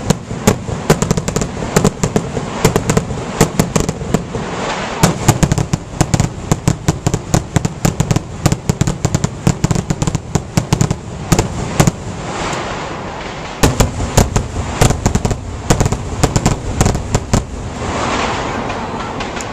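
Aerial fireworks going off in a rapid barrage, many sharp bangs and cracks a second, with a brief lull about halfway through.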